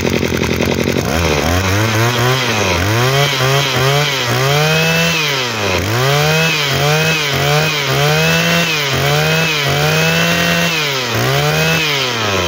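Maruyama 26cc two-stroke brushcutter engine running, revved up and down by hand about ten times in quick succession, each rev rising and falling over about a second.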